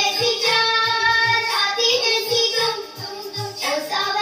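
Hindi film song playing: a high voice sings held, gliding notes over a steady beat.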